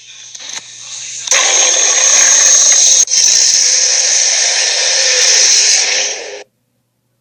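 A creature sound effect: a long, harsh hiss with no clear pitch. It starts about a second in, breaks briefly halfway through, and cuts off abruptly near the end.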